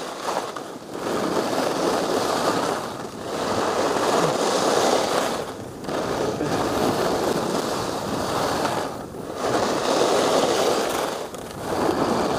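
Skis carving turns on soft groomed corduroy with a light layer of fresh snow: a scraping hiss that swells through each turn and drops away briefly between turns, about every two to three seconds.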